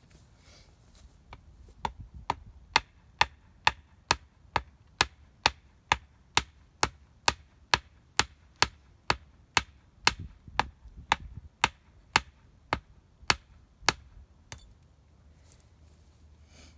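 A hatchet striking wood in steady, evenly spaced blows, about two a second, for some twelve seconds, then stopping.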